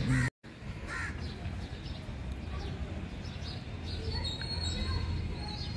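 Birds calling: a short falling call about a second in and a thin high whistle around four to five seconds, over a steady low rumble. The sound cuts out completely for a moment just after the start.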